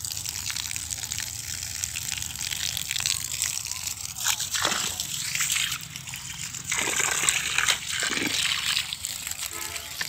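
Water jet from a hose fed by a homemade 12-volt pump built on a 775 DC motor, spraying and splattering onto dry soil. It is a steady hiss with a few louder swells.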